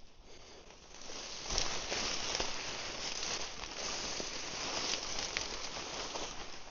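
Dry grass and brush rustling and crackling as someone pushes through thick cover, a dense stream of small snaps starting about a second in and stopping near the end.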